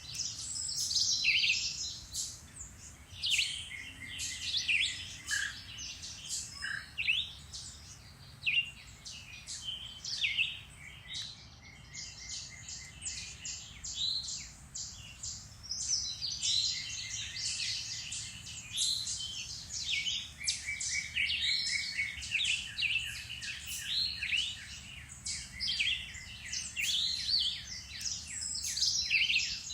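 Many songbirds singing at once in woodland: a dense, overlapping chorus of chirps, short phrases and fast trills.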